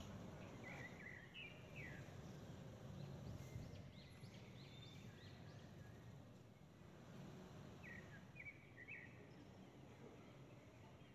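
Near silence: faint low background hiss with a few faint bird chirps, in short clusters about a second in, around four to five seconds in, and again about eight seconds in.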